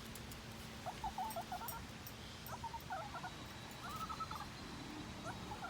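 A dog whining: four short, high, wavering whines spread across a few seconds.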